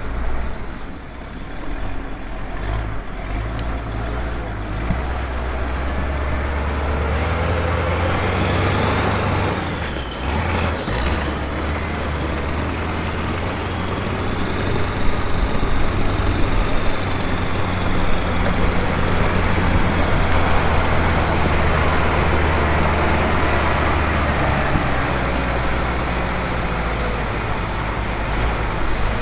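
Large farm machine's diesel engine running steadily, with a brief dip in the engine sound about ten seconds in.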